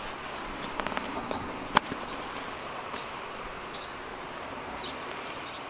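A compressed sleeping bag in a nylon stuff sack being handled: a few small clicks, then one sharp click a little under two seconds in, like a plastic buckle on a compression strap, over steady outdoor ambience.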